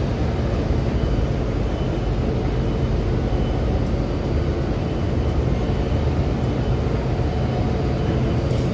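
Steady low drone of ship diesel engines running, a hum of several low tones under an even hiss.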